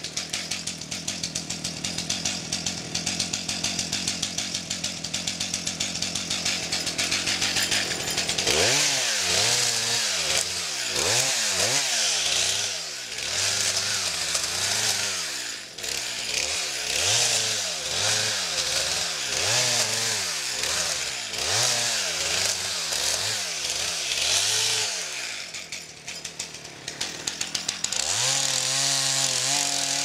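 Two-stroke chainsaw idling, then revved up and down about once a second in short bursts as branches are cut off a felled tree trunk. Near the end it is held at steady high speed in a longer cut.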